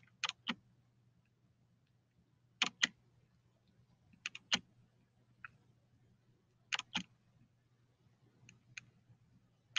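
Sharp, faint button clicks, mostly in quick pairs, coming irregularly every second or two as a presentation's animation steps are clicked through, over a faint steady low hum.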